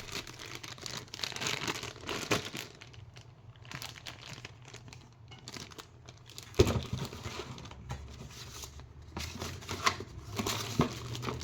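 Packing paper crinkling and rustling as hands rummage through a shipping box, with a sharp knock a little past halfway and a few lighter clicks near the end.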